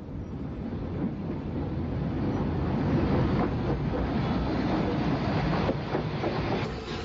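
Rebuilt Bulleid Pacific steam locomotive and its train passing through at speed: a loud rushing noise that builds as the engine approaches, stays loudest while it and the coaches pass, and falls away near the end.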